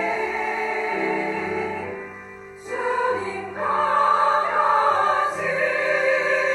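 Women's choir singing a Korean hymn with piano accompaniment. The music dies down for a moment about two seconds in, then comes back louder.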